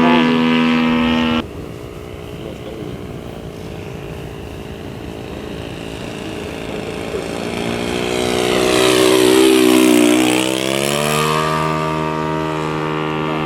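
Radio-controlled Top Flite Cessna 182 Skylane model plane's engine and propeller in flight. The plane draws closer and passes by, its pitch falling as it goes past about ten seconds in.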